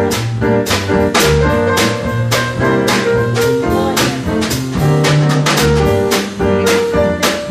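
Jazz-style music with a drum kit keeping a steady beat of cymbal and drum hits, a bass line, and sustained horn-like notes.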